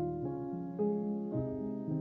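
Background music on a piano-like keyboard, with held notes that change every half second or so.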